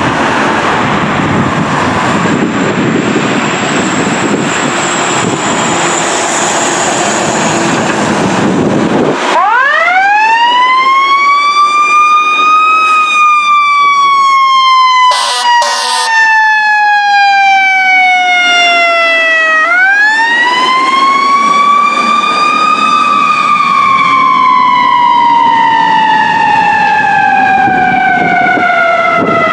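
Fire engine siren wailing, each cycle a slow rise in pitch followed by a long fall, repeated twice. It starts about a third of the way in, after a loud rushing noise that cuts off abruptly. Two brief blasts break in about halfway through.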